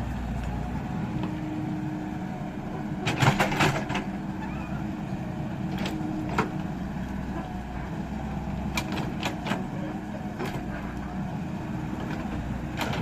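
Excavator's diesel engine running steadily, with sharp knocks over it; a loud cluster of knocks about three seconds in, then single knocks every second or two.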